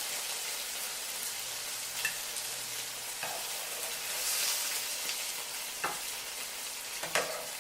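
Food sizzling steadily in a hot pan, with a few light clicks, swelling about four seconds in and cutting off suddenly.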